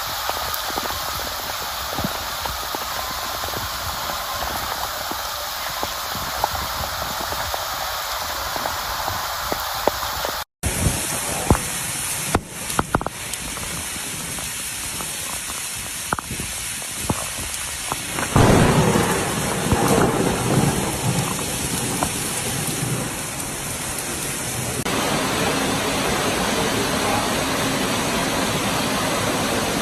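Heavy rain and floodwater: a steady hiss of rain and running water, broken by a brief dropout about a third of the way in and by a louder stretch of noise just past the middle. Near the end comes a steadier rush of floodwater pouring down the stairs into a flooded subway station.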